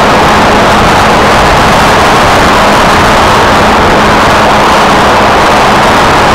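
Steady loud rush of airflow and the drone of the electric pusher motor and propeller of an F27C Striker flying wing in flight, picked up by its onboard camera's microphone, with a faint steady hum underneath.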